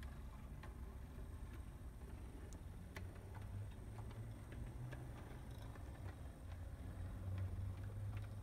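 Brass HO-scale D&RGW 4-6-6-4 Challenger model locomotive running on track: a steady low hum from its motor and spur-gear drive, which gives a slight gear noise, with irregular light clicks from the wheels on the rails. The hum swells a little about halfway through and again near the end.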